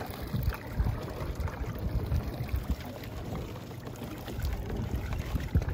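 Ground chum being poured from a foil bag into a clear plastic chum-bomb container, the bits trickling onto the plastic with faint scattered ticks. Underneath is a low, uneven rumble.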